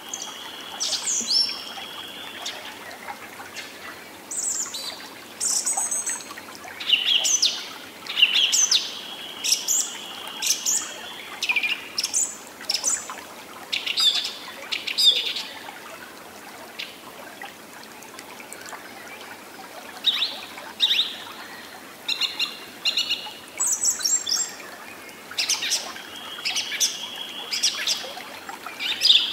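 Songbirds chirping and singing, with short calls every second or so and a few longer buzzy trills, over a soft steady background hiss.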